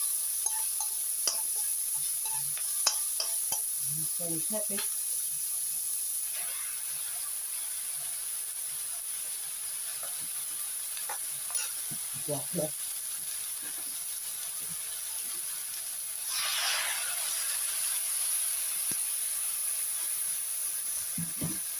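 Pork, garlic and red chillies sizzling in a wok as they are stir-fried, with a spatula ticking and scraping against the pan in the first few seconds. Chinese cabbage then goes in and keeps sizzling, with a louder burst of hiss about three-quarters of the way through.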